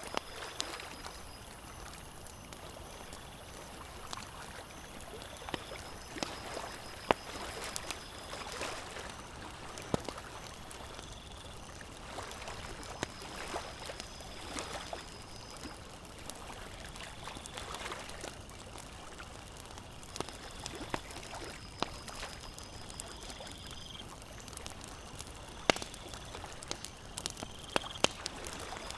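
Campfire crackling with frequent sharp pops and snaps, over a steady wash of lake water lapping at the shore.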